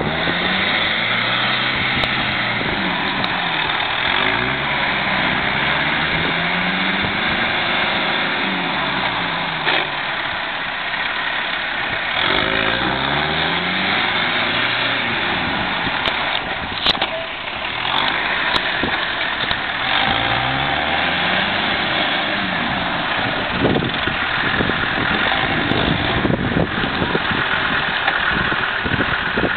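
Four-wheel-drive SUV's engine revving up and falling back again and again, under load in a deep muddy rut, over a steady rushing noise.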